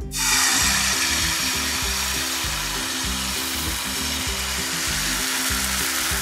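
Rice-flour batter sizzling in a hot oiled frying pan, the hiss starting suddenly as the batter hits the pan and then holding steady as it spreads. Background music plays underneath.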